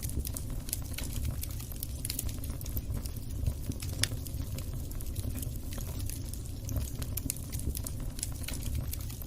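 Wood fire crackling in a fireplace: a steady stream of small snaps and pops over a low rumble, with two sharper pops about three and a half and four seconds in.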